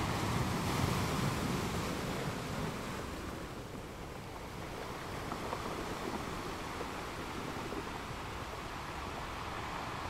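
Ocean waves crashing: a steady rush of surf, swelling loudest in the first two seconds, easing off around four seconds in, then running on evenly.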